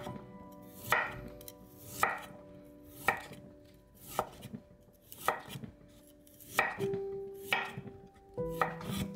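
Cleaver shaving the tough outer wall off the base of a peeled raw winter bamboo shoot, each stroke knocking the blade onto a wooden cutting board, about once a second.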